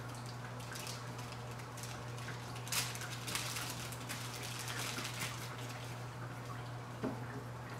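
Clear plastic bag crinkling and rustling as foam clone collars are handled and pulled out of it, with a sharper crackle about three seconds in and another near the end. A steady low hum sits underneath.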